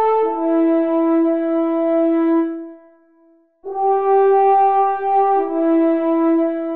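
Music: a brass horn playing long held notes in two phrases, each stepping down from a higher note to the same lower one, with a short break about three seconds in.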